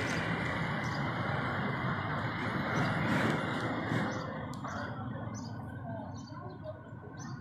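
Street traffic with a motorcycle riding past, its engine sound fading away over the first four seconds. Faint bird chirps follow in the quieter second half.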